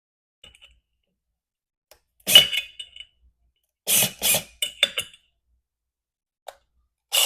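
Metal parts of a hole saw and its arbor clinking and scraping as they are handled and the nut is screwed on: a handful of short bursts, some with a brief metallic ring, the loudest about two seconds in.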